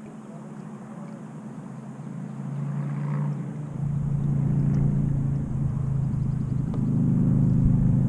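A low, steady motor hum that grows louder from about two seconds in, with a low rumble joining about halfway through.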